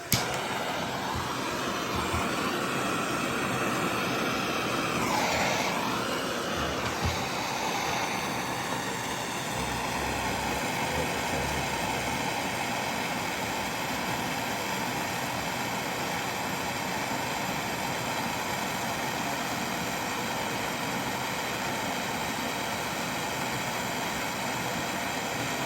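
Electric motor of a lapidary grinding machine starting suddenly and running with a steady whine. About five seconds in, its pitch dips and comes back up, then it runs steadily.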